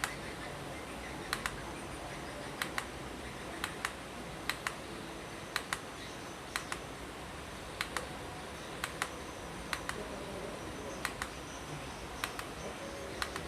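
Aula mechanical keyboard with clicky blue switches, single keys pressed slowly about once a second; each keystroke gives a sharp double click, one on the press and one on the release.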